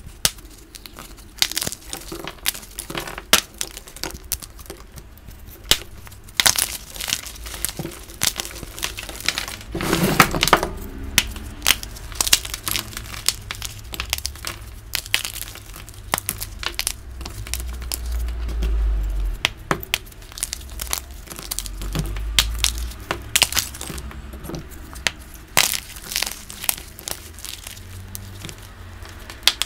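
Dyed gym chalk blocks crunching and crumbling as fingers squeeze and break them into powdery crumbs, a dense run of sharp, irregular crackles. Twice in the second half a low rumble comes in under the crunching.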